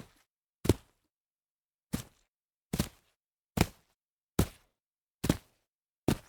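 Feet landing jump after jump on soggy grass: eight short impacts, each dying away quickly, with silence between, spaced a little under a second apart except for one longer gap near the start.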